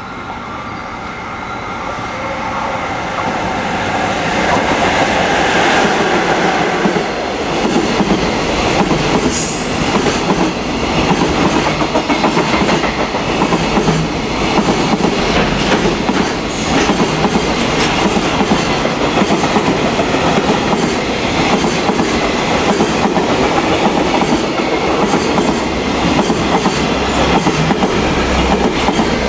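JR Freight EF66 electric locomotive hauling a container freight train through a station without stopping. It grows louder over the first few seconds as it approaches, then the container wagons go by in a long, steady clatter of wheels over the rail joints.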